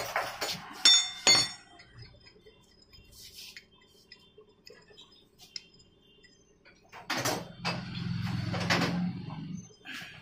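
Small steel engine parts clinking and ringing against each other during motorcycle clutch assembly, with a few faint ticks afterwards. About seven seconds in, a louder rough rumbling noise lasts about three seconds.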